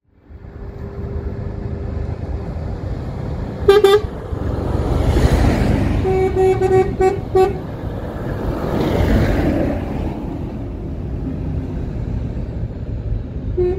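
Trucks driving by on the road, sounding their horns: one loud blast about four seconds in, then a quick string of short toots, and more short toots near the end, over the rush of the trucks passing.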